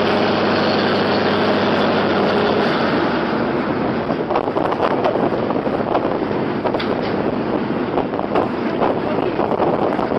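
An engine running steadily under heavy wind noise on the microphone, its hum fading into the noise about three seconds in, with scattered knocks and rattles after that.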